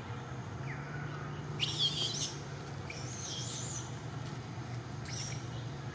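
Birds calling: a few short, high, warbling chirps, the loudest about two seconds in, over a steady low hum.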